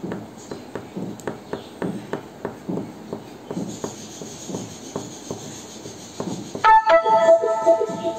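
A green crayon scratches across drawing paper in short, quick strokes, about three a second. Near the end, a loud musical tone with several steady pitches starts suddenly and holds; it is the loudest sound.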